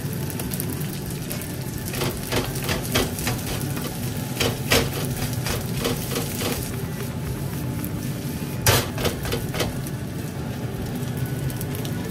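Egg fried rice sizzling in a carbon-steel wok over a gas flame, with a steady hiss underneath. A metal ladle clanks against the wok in quick runs of strikes, about two to five seconds in and again around nine seconds.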